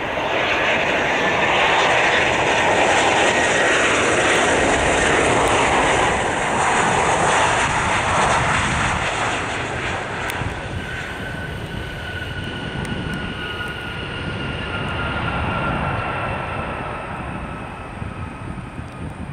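Embraer E190 twin-jet airliner landing. It opens with a loud, even jet roar. After touchdown, about ten seconds in, the engines' whine comes through in steady, slightly falling tones over a rumble as the jet rolls out and slows.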